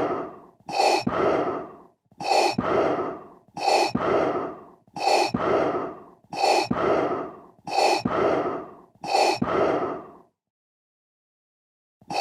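Darth Vader's respirator breathing sound effect, the classic breath drawn through a scuba regulator: a regular cycle of an inhale followed by a longer exhale, about every second and a half, seven times over. It stops for under two seconds, then starts again at the very end.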